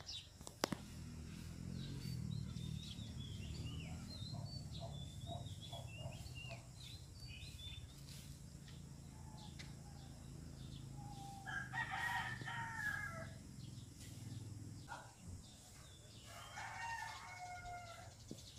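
Rooster crowing twice, about twelve seconds in and again near the end, with small birds chirping earlier, over a low steady hum.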